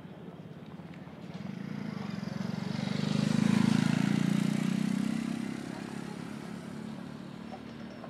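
A motor vehicle driving past, its engine and tyre noise swelling to a peak about three and a half seconds in and fading away by about six seconds.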